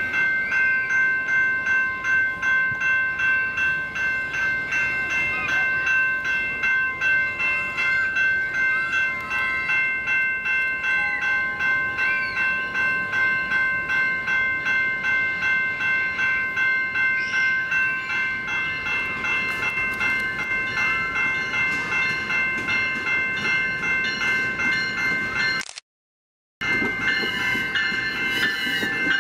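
Railway level-crossing warning bell ringing steadily with quick repeated strokes as a commuter train approaches. Near the end, after a short cut, the bilevel AMT commuter train passes over the crossing with the noise of its wheels and cars.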